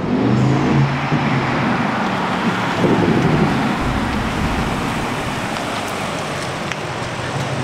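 BMW 8 Series car driving up the street and slowing to pull in, with engine note and tyre noise. It is loudest in the first seconds and eases off gradually.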